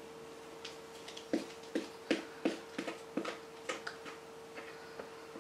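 Wooden spoon knocking and scraping against a plastic mixing bowl as thick cake batter is pushed out into a tin: a run of about seven light taps, two or three a second, in the middle, over a faint steady hum.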